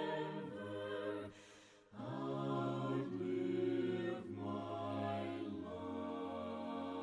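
Soft a cappella choir singing a slow hymn in several-part harmony, with long held chords. There is a brief pause about a second and a half in.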